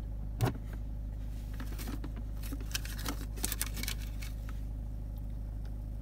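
Short plastic and metal clicks and knocks as a car's gear selector knob is pushed back onto its lever: one sharp knock about half a second in, then a cluster of clicks around the middle. Under them runs the steady low hum of the idling engine.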